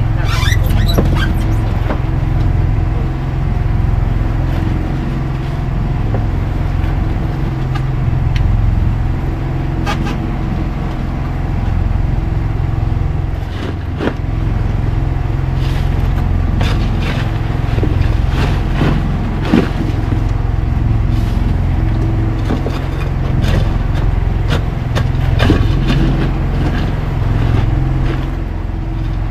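An engine running steadily on board an outrigger fishing boat, with scattered knocks and clatters from fish and crushed ice being handled in a cooler box.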